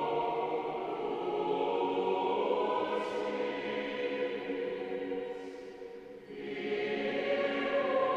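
Choral music as a soundtrack: a choir singing long held chords, dying down briefly about six seconds in before the voices come back.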